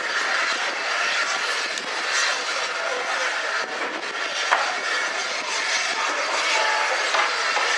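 A steady hiss of steam from the Peppercorn A1 Pacific steam locomotive Tornado standing at the platform, with no exhaust beat, and one sharp click about four and a half seconds in.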